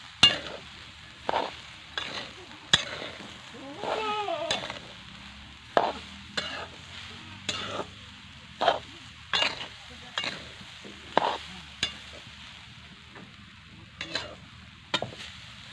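A spatula scraping around a kadhai, stirring grated coconut just mixed with sugar in short strokes about once a second, with a brief pause near the end.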